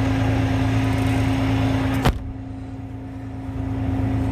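Semi truck's diesel engine running steadily with an even low drone and a hiss above it, heard from inside the cab. About halfway through there is one sharp click, after which the hiss briefly drops away and then returns.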